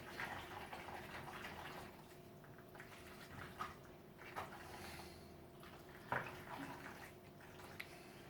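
Spoon stirring pasta and tuna in a pan: soft wet squelching with scattered small clicks, and one sharper knock about six seconds in.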